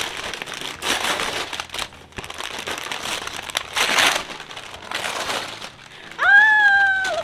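Gift wrapping paper being torn and crinkled in several bursts as a present is unwrapped. Near the end a woman lets out a long, high-pitched exclamation.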